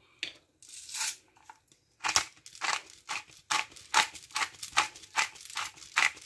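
Pepper mill being twisted over a bowl of vegetables: after a short rustle near the start, crunchy grinding strokes about two or three a second from about two seconds in.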